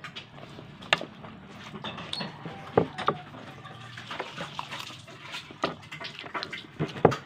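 Close-up eating sounds: wet chewing, sucking and lip smacking on adobo-braised chicken feet, with irregular clicks of a metal spoon against the plate.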